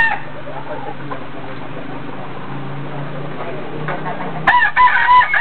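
Rooster crowing about four and a half seconds in: one long crow with a held note.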